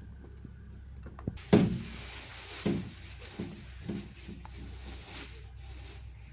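A sharp knock about a second and a half in, followed by several lighter knocks and clatter, over a steady low hum.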